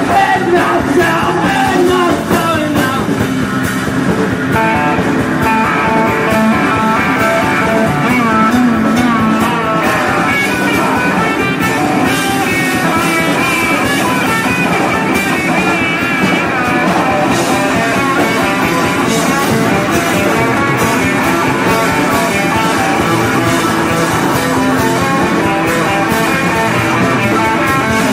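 Rock band playing live: electric guitar lines over bass and drums, a steady stretch of the song with no clear vocals.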